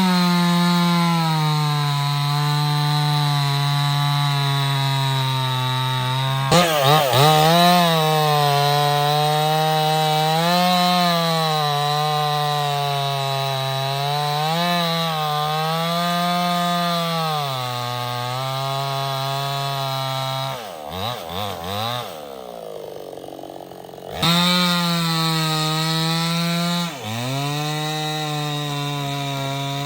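Stihl 070 two-stroke chainsaw running at high revs while cutting teak, its pitch sagging and recovering as the chain bites into the wood. About 21 seconds in, the revs fall away to a low idle. A few seconds later the engine is throttled straight back up to full speed.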